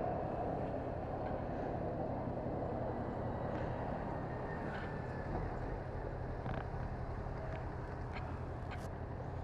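A Yamaha MT-07 motorcycle's parallel-twin engine idling steadily, picked up by the GoPro's built-in microphone, with a few light clicks from the camera and its mic cable being handled.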